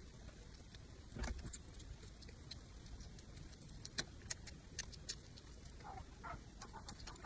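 Close-up eating sounds: scattered short clicks and smacks of chewing, with a soft thump about a second in.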